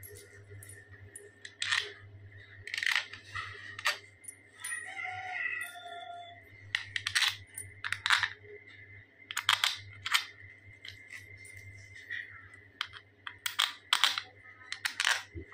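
Small metal engine parts clinking and scraping against a motorcycle engine's casing as it is assembled by hand: irregular short metallic clicks, over a steady low hum.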